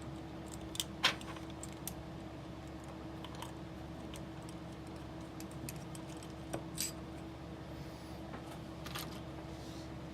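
Scattered small metallic clicks and clinks of tiny screws, bolts and a small tool being handled while an anti-wrap bar is mounted on a scale RC crawler's axle, over a steady low hum.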